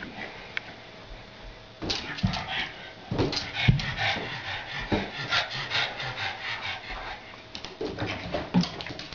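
Pug giving short, excited play barks and yips in a quick, irregular run, starting about two seconds in.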